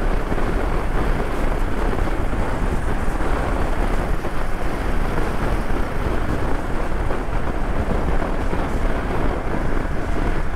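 Steady wind rushing over the microphone of a motorcycle rider at road speed, with the motorcycle's engine and tyre noise underneath.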